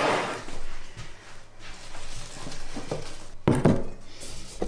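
Handling noises of a glass bowl of water on a wooden tabletop. The loudest is a dull knock about three and a half seconds in, with a smaller knock near the end.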